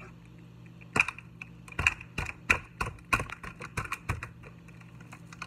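Kitchen knife stabbing a salmon fillet in a glass baking dish: an irregular run of about a dozen sharp taps and clicks as the blade pokes through the fish and meets the glass.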